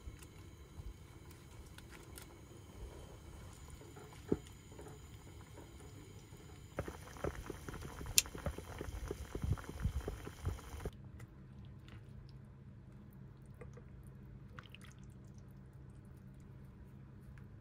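Coconut curry soup boiling in a pot, thick bubbles popping irregularly for about four seconds in the middle. Before and after that only a faint steady background: a soft hiss at first, then a low hum.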